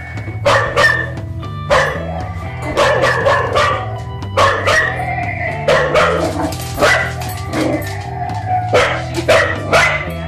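Cardigan Welsh Corgi barking repeatedly during play with a ball, short barks coming in quick clusters of two or three, over background music.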